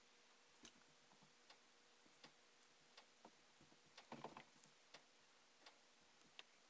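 Near silence broken by faint, irregular small clicks and taps from handling work: a gloved hand turning a cast iron Santa bank while dabbing paint on with a small brush, with a brief cluster of taps and rustling about four seconds in.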